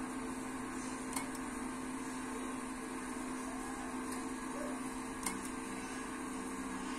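Steady hum of a 144 MHz power amplifier's cooling fans and power supply while it transmits at about 400 W, with two small clicks, about a second in and just past five seconds.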